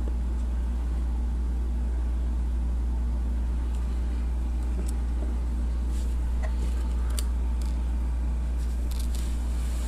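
A steady low hum throughout, with a few faint light clicks in the second half as small plastic toy robots are handled and set down.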